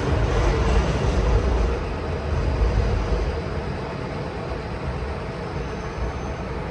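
City street traffic noise: a steady low rumble of road vehicles, louder for the first couple of seconds and then easing slightly.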